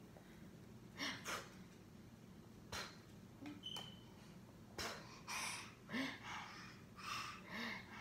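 Short breathy sniffs and snorts with a couple of soft, brief low vocal sounds in the second half, close to the microphone while a baby chews finger food.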